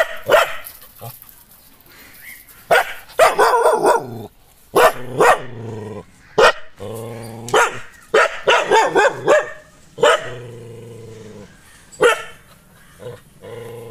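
Nadan dog barking repeatedly in short, sharp barks at strangers, a sign of its aggression toward people. A steady low hum sounds in some of the gaps between barks.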